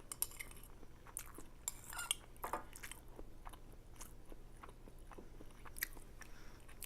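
Close-miked eating of ramen noodles: soft chewing and mouth sounds, with a few sharp clicks of a utensil against the bowl scattered through.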